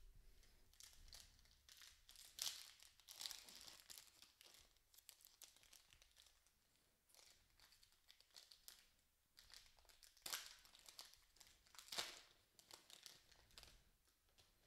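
Foil wrapper of an Upper Deck hockey card pack crinkling and tearing as it is opened by hand, in faint, scattered crackles, with a few louder ones about two and a half, ten and twelve seconds in.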